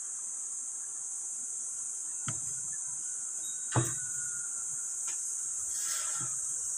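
A steady, high-pitched insect chorus of crickets or cicadas, with a few knocking footsteps on a stairway's treads: three knocks, the loudest about four seconds in.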